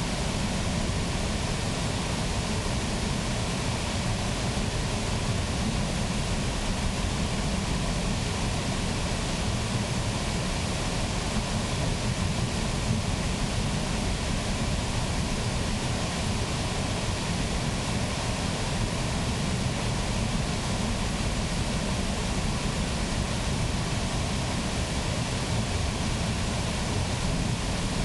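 Water rushing and splashing steadily through the mill race beneath an undershot water wheel, a constant noise with a deep rumble underneath.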